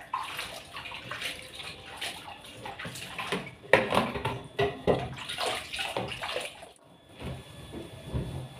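Water running from a kitchen tap and splashing over a plate being rinsed in a stainless-steel sink, with a few sharp knocks of dishware against the sink.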